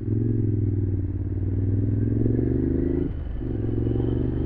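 Motorcycle engine running steadily at cruising speed, heard from the rider's seat; the engine sound drops away briefly about three seconds in, then picks up again at the same pitch.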